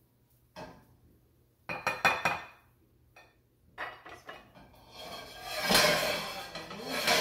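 Spoon clinking and scraping against a stainless steel frying pan and a bowl while scooping out cooked spinach: a few sharp clinks in the first half, then longer, louder scraping near the end.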